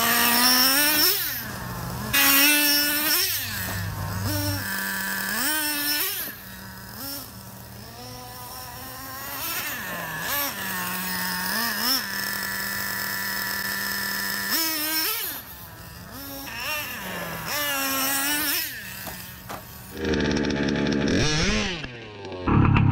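Traxxas Revo RC monster truck revving up and down over and over, with steadier stretches of held throttle between the revs. Near the end comes a louder stretch, running into the Rovan Baja 1/5-scale buggy's two-stroke gas engine.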